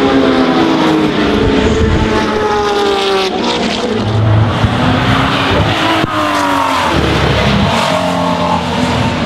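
Historic race car engines, a Porsche 935 and a BMW M1, on the overrun as the drivers lift off the throttle: the engine note falls several times and briefly rises again near the end. Lifting off like this makes unburnt fuel ignite in the red-hot exhaust, throwing flames.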